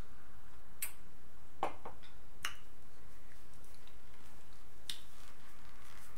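A few sharp, separate clicks and smacks from eating at the table, about five over six seconds: mouth smacks and a wine glass being set down.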